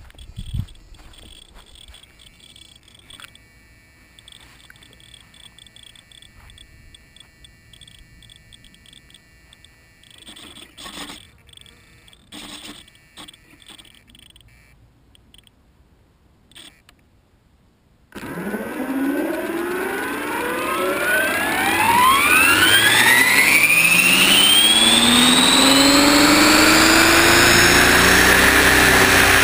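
Align T-Rex 600ESP electric RC helicopter spooling up. After a quiet stretch with a few light knocks, the motor and rotor start suddenly about 18 seconds in and rise steeply in pitch as the head speeds up. After a few seconds they settle into a loud, steady whine at flying speed.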